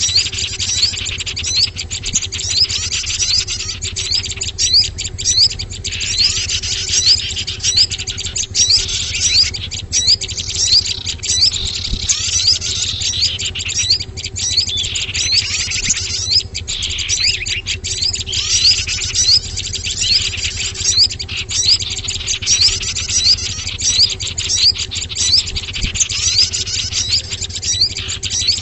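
Bird-lure recording of many small songbirds chirping and calling densely together, with quick high chirps and short falling glides repeating without a break over a steady low hum. It is a lure call meant to draw small wild birds in.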